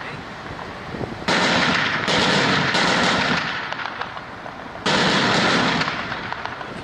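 Gunfire in sustained bursts: a dense crackle sets in suddenly about a second in and again near five seconds, each time dying away over a couple of seconds.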